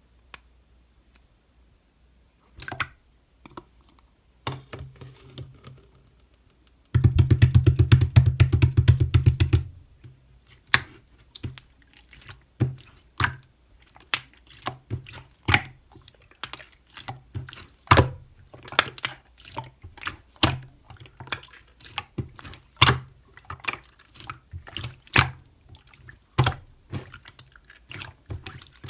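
Clear slime being squished and pressed by hand, giving sharp wet clicks and pops of trapped air. A dense run of rapid clicks comes about seven seconds in and lasts a couple of seconds, then separate pops.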